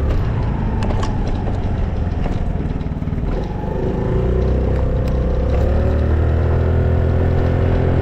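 Honda Navi mini motorbike's small single-cylinder engine running while ridden. It eases off about three seconds in, then picks up with a rising pitch and holds steady, with light rattles early on.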